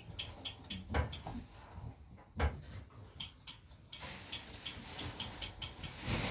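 A series of light, sharp clicks, scattered at first and then about three to four a second in the second half, with a couple of soft knocks about one and two and a half seconds in.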